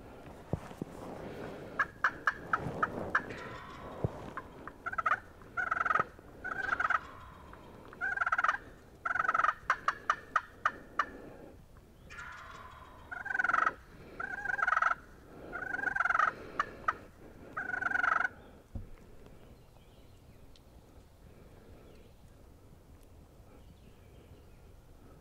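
Wild turkey gobbling: a string of short, warbling calls about every second, with quick runs of sharp notes among them, from about two seconds in until they stop about eighteen seconds in.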